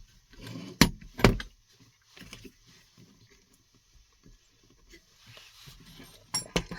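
Two sharp knocks about a second in, then light clattering of objects being handled, and another pair of knocks near the end: hard parts or tools being picked up and set down.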